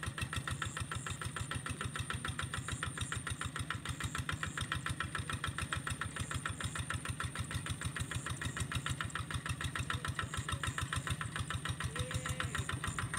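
Two-wheel walk-behind hand tractor's single-cylinder diesel engine running steadily as the tractor is driven through a rice field, a rapid, even beat of firing strokes.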